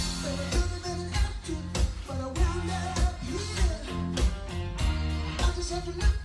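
Pop-rock song with a sung vocal melody, guitar and a steady drum beat.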